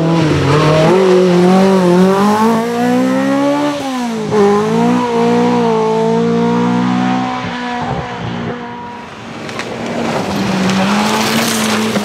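Opel Kadett C rally car's four-cylinder engine at high revs, its pitch climbing and then dropping at a gear change about four seconds in, climbing again and holding. It eases and grows quieter around nine seconds in, then pulls hard again near the end.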